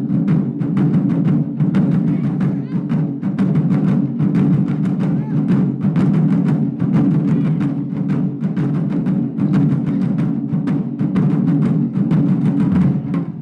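Taiko ensemble playing: several chū-daiko (nagadō-daiko) barrel drums struck with wooden bachi in a fast, dense, unbroken rhythm.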